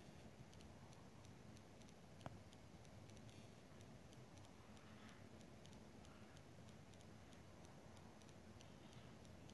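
Near silence: hall room tone with faint, regular ticking a few times a second and one slightly louder click about two seconds in.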